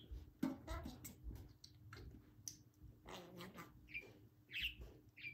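Pet budgerigar chattering quietly, with a few short high chirps near the end.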